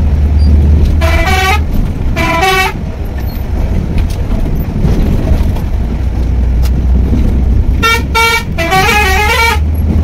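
Volvo coach's horn sounding in short toots over the steady low rumble of the bus running: two toots in the first few seconds, then three in quick succession near the end, the last one wavering in pitch. Heard from inside the driver's cab.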